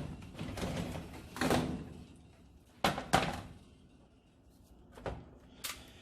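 A series of knocks and clunks from the stove's metal parts being handled and bumped during the repair: one about a second and a half in, two close together near the middle, and two lighter ones near the end.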